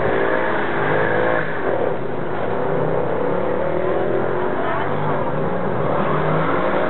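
Supercar engine revving and accelerating, its pitch rising and falling several times.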